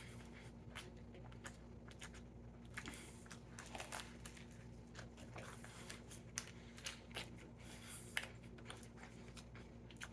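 Faint chewing of a sandwich: scattered small clicks and mouth smacks at an uneven pace.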